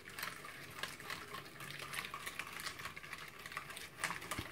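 Hand wire whisk beating a runny batter of eggs, oil and sugar in a glass bowl: a rapid, irregular wet sloshing, with the whisk wires ticking against the glass.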